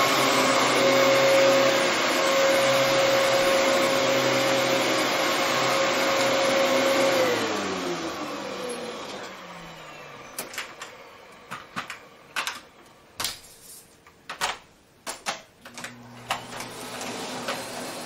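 Dyson upright vacuum cleaner running steadily, then switched off about seven seconds in, its motor whine falling as it spins down. Then a run of sharp clicks and knocks as the vacuums are handled, and a low hum coming in near the end.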